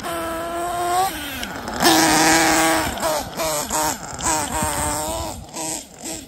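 Glow-fuel nitro engine of a Kyosho Inferno NEO ST 3.0 1/8-scale RC truggy being driven, its pitch rising and falling with the throttle. It is loudest, held at a high steady pitch, about two seconds in, then blips up and down in several short bursts of throttle.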